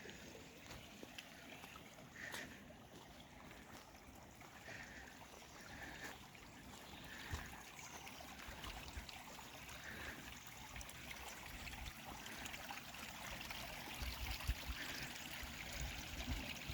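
Water trickling and running along a hand-dug drainage ditch: a faint, steady rush, with a few short high chirps over it.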